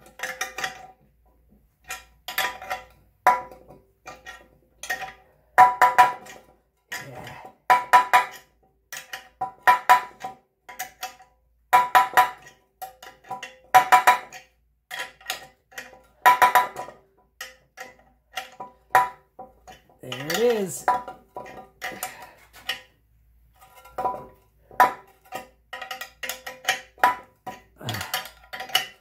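Wrench clinking against the forcing screw of a bearing puller as it is turned stroke by stroke, the steel puller and the aluminium transfer-case half ringing at the same pitches each time. These are repeated sharp metallic clinks, one every second or two, sometimes in quick clusters, as the front output shaft bearing is drawn out of a Jeep NP231 transfer case.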